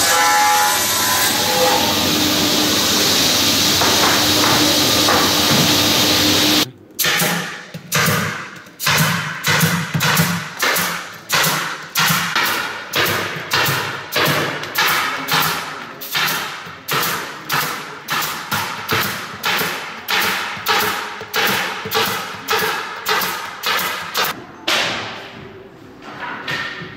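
A sliding-table panel saw runs steadily, then cuts off suddenly. A pneumatic staple gun then fires sharp shots at about two a second, stapling shingle roofing onto a wooden cat house.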